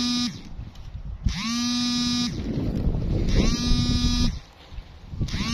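Snake charmer's been (pungi) sounding one held note about a second long, repeated about every two seconds, each note bending up briefly as it starts.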